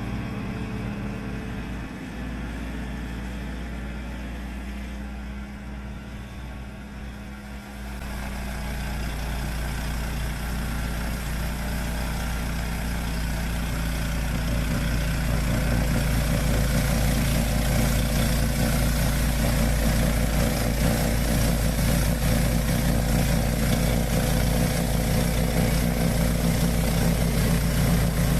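Yamaha YT1070 snowblower engine running steadily, growing louder about eight seconds in and again around fifteen seconds.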